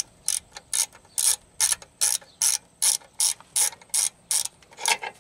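Socket ratchet backing out a 13 mm bolt from a transmission-line clamp: a short rasp of the pawl clicking on each back-swing, about two and a half strokes a second.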